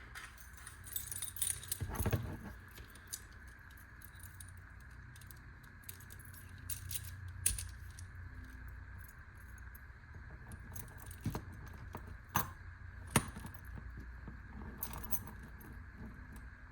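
A bunch of keys jangling and clicking on a key ring as a small tool is worked onto it, in scattered bursts with sharp metal clicks every few seconds.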